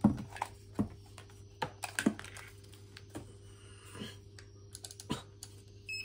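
Irregular light clicks and taps of a digital clamp meter and its test leads being handled, with a short high beep near the end.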